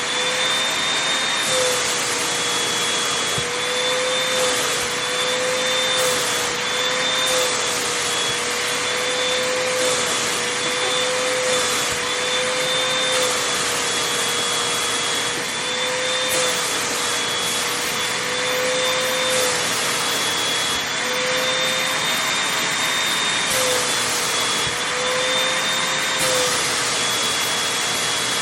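Vacuum cleaner running steadily with a high motor whine, its pitch wavering slightly and its airy hiss shifting every second or two as the nozzle is worked over fabric.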